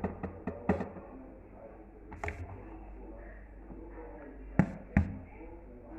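Several sharp clicks and knocks of kitchen items being handled and set down, a quick cluster in the first second, one more a little after two seconds, and the two loudest knocks close together near the end, over a faint steady background.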